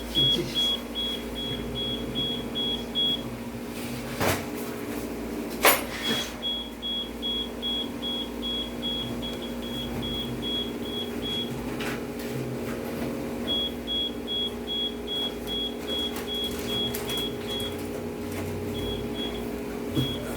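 Door-alarm prototype's electronic buzzer sounding a rapid high beep, about four a second, that stops and starts several times. A few sharp clicks fall in the pauses, over a steady low hum.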